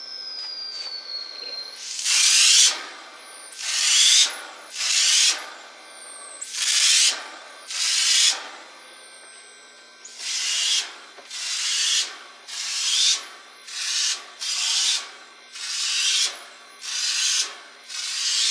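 Homemade compressed-air spray gun, made from an insecticide pump sprayer, spraying paint in about a dozen short hissing blasts of under a second each. It starts about two seconds in, with brief pauses between the blasts.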